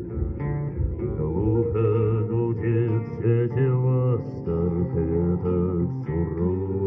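A live folk band plays an instrumental passage of plucked guitar over bass.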